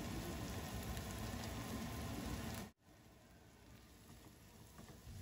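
Thick prawn masala sizzling steadily in a frying pan, cut off suddenly about two and a half seconds in, leaving only a faint hiss.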